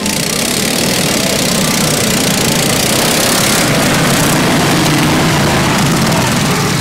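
Several racing ride-on lawn mower engines running together at close range, steady and loud.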